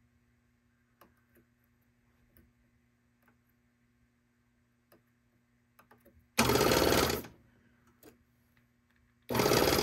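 Baby Lock Evolution serger's jet-air looper threading blowing thread through the loopers in two short, loud blasts of air, the first about six and a half seconds in and the second near the end. Before them there are a few faint clicks as the threads and threading ports are handled.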